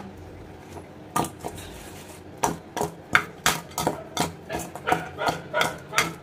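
Pieces of salted hilsa being tossed and mixed by hand with spices and mustard oil in a metal bowl: irregular knocks and clanks of fish against the bowl, starting about a second in.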